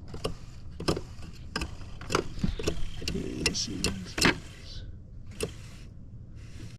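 Irregular clicks and knocks of plastic and metal parts being handled as a car's heater blower motor is worked loose from its housing.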